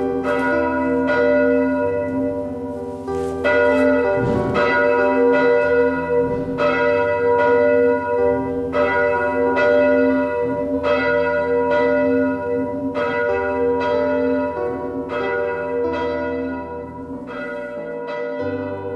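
Church bells ringing, struck about once a second, each stroke ringing on into the next.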